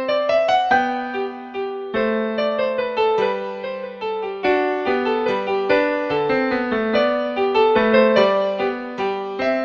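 Background music: a piano or keyboard melody in quick, even notes.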